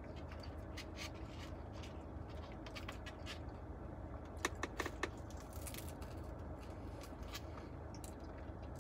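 Quiet car-interior room tone with a steady low hum, and a few soft clicks and scrapes about midway as a taco is dipped into a sauce cup on a foam takeout tray.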